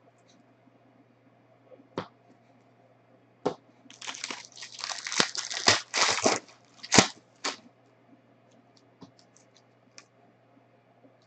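Clear plastic wrapper of a trading-card pack being torn open and crinkled for about three and a half seconds, after two sharp snaps. Faint clicks of the cards being handled follow near the end.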